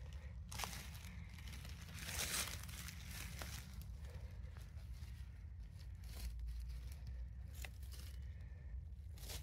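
Rustling and crackling in several short, irregular bursts, the loudest about two seconds in, over a steady low rumble.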